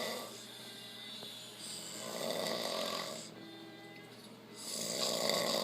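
A man snoring in deep sleep, each rasping snore swelling and fading about every three seconds.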